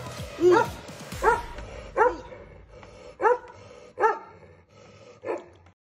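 A Bakarwal livestock guardian dog barking, six deep barks about a second apart, the last one quieter.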